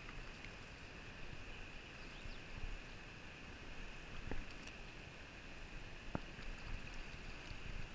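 Faint steady rush of flowing river water, with a few brief clicks and knocks as the fly line and hooked trout are handled.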